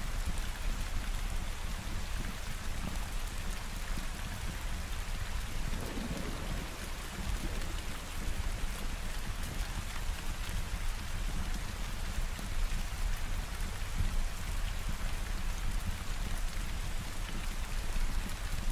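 Steady rain falling, with a low rumble of a thunderstorm underneath that swells briefly about six seconds in.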